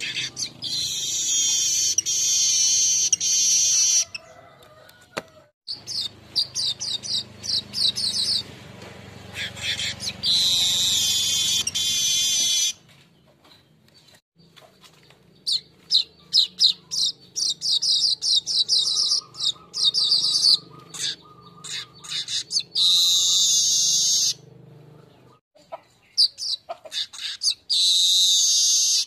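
Golden-headed manyar (Asian golden weaver) singing a lure song: repeated high, rapid chattering phrases, each lasting a few seconds, with short pauses between them.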